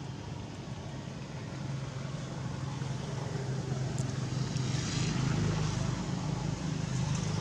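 A low, steady engine hum that grows louder from about two seconds in.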